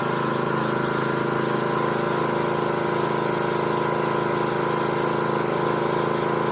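Gasoline-engine pressure washer running steadily while spraying water through a soap nozzle.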